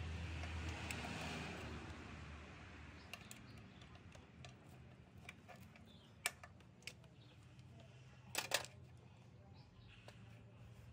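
Scattered light clicks and knocks of plastic and metal as a fuel rail with its injectors is worked loose by hand from the engine's intake manifold. The loudest is a short rattle of clicks about eight and a half seconds in. A low steady hum fades out over the first two seconds.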